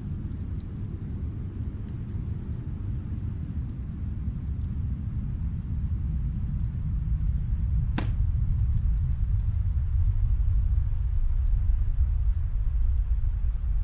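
Low rumble of snowstorm wind that slowly swells, over a fireplace fire with sparse faint crackles and one sharp pop about eight seconds in.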